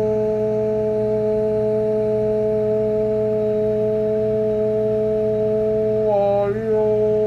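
A steady, held tone with overtones, heard through the CB monitor radio's speaker while the transmitter is keyed into the linear amplifier. It wavers briefly about six seconds in and cuts off suddenly as the radio is unkeyed. A steady low hum sits underneath.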